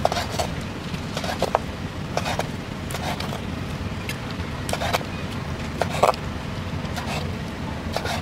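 Large kitchen knife slicing boiled beef tripe on a wooden cutting board: the blade knocks sharply against the board with each cut, irregularly, about one or two knocks a second, over a steady low background rumble.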